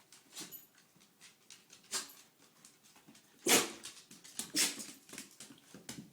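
A bichon frise sneezing several times in a row, each sneeze a short sharp burst, the loudest about three and a half seconds in.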